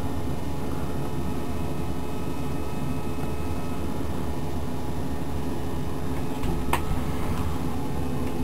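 Steady electrical hum of many even tones over a fan-like hiss, with a single sharp click a little over six seconds in.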